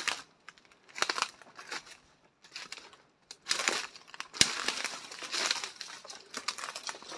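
Footsteps crunching through dry leaf litter and twigs, an uneven series of crackling steps with one sharper snap a little past halfway.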